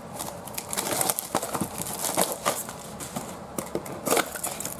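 A cardboard trading-card box being opened and its packing handled: irregular crinkling, rustling and sharp little clicks of cardboard and wrapping.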